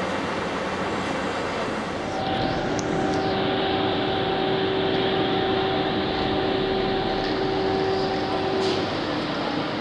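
TGV Duplex high-speed train moving off slowly, its power car giving a steady two-note electric whine over a low rail rumble, with a few light clicks. Before this, for about the first two seconds, a regional double-deck electric train is heard running in.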